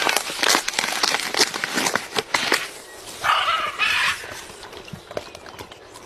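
Blue-and-gold macaw biting into a green coconut's husk with its beak: a quick run of sharp crunching clicks and cracks, then a harsh rasping sound lasting about a second from about three seconds in.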